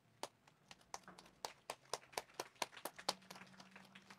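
Faint scattered applause from a small group of people: a few people clapping irregularly for about three seconds, thinning out near the end.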